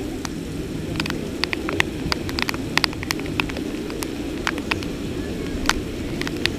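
Heavy rain: a steady, low rushing noise with many irregular sharp ticks of raindrops striking close to the microphone.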